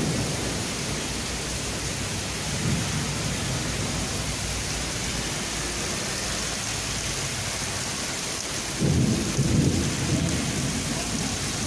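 Heavy rain falling steadily during a thunderstorm, with thunder rumbling low twice, the louder roll about nine seconds in.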